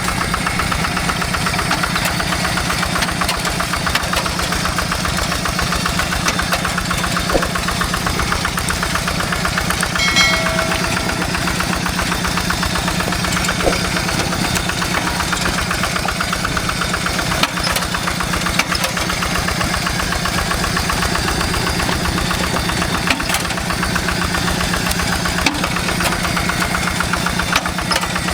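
Diesel farm-machine engine running steadily, with a rapid, even pulsing beat that does not change.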